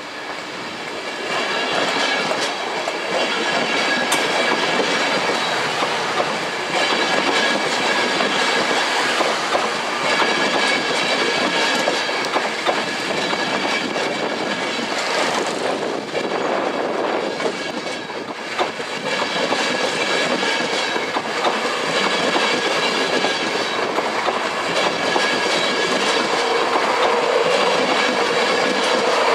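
A train running past on the track, its noise rising about a second in and staying loud, with steady high-pitched tones over the running noise and scattered clicks.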